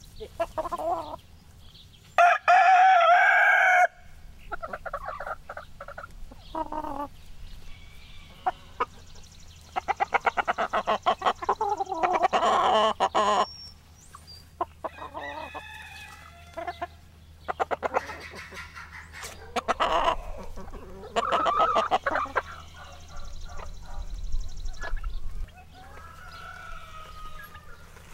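Chickens clucking, with a rooster crowing in loud, drawn-out calls among them.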